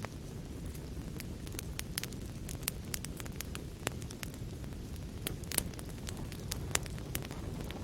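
Fire crackling in a fireplace: a steady low rumble of burning with irregular sharp pops and snaps, a few louder ones past the middle.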